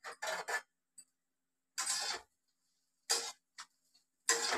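Metal ladle scraping and stirring chopped coconut, cashews, almonds and raisins around a steel kadhai as they roast in a little leftover oil. The scrapes come in short separate strokes, three quick ones near the start, then single strokes about a second apart.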